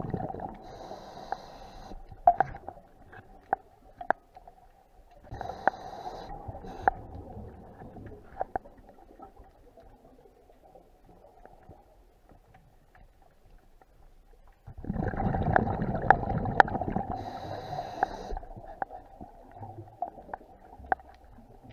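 Scuba diver's exhaled bubbles from the regulator, heard underwater: bubbling bursts at the start, again about five seconds in, and a longer one starting about fifteen seconds in. Between the breaths there are scattered sharp clicks and a faint steady hum.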